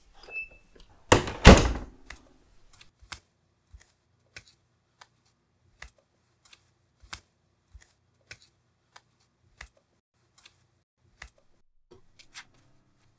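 A loud heavy thud about a second in, then footsteps on a concrete floor, about one and a half steps a second.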